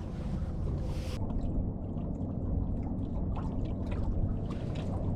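Water lapping and trickling against a fishing boat's hull over a steady low rumble, with small scattered ticks throughout.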